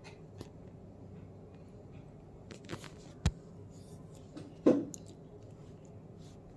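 Low steady room hum with two short handling sounds from painting materials on the table: a sharp click about three seconds in and a duller knock about a second and a half later.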